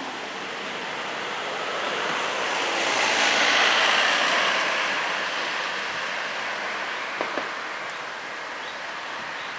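Road traffic noise: tyres hiss past on the nearer road, swelling to a peak about three and a half seconds in and then fading, with two small knocks near the end.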